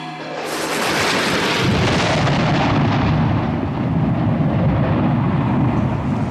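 Blasting in an open-pit coal mine: an explosion goes off about half a second in and rumbles on for several seconds as a long, deep roar, its higher hiss slowly dying away.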